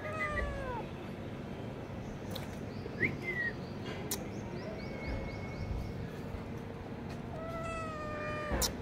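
Young kitten meowing: a short falling meow at the start and a longer falling meow near the end.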